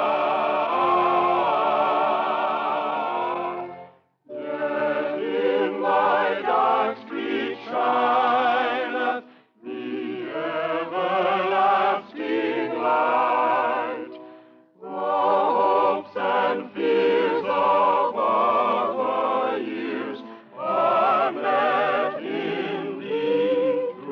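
A choir singing a slow piece in long, held phrases with wavering notes, breaking off briefly between phrases three times. It is heard through an old radio transcription-disc recording with dull, muffled highs.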